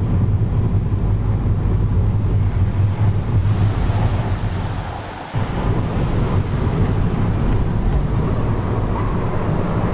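Steady low rumble of a moving car heard from inside, road and wind noise. It dips briefly about halfway through, then comes back suddenly.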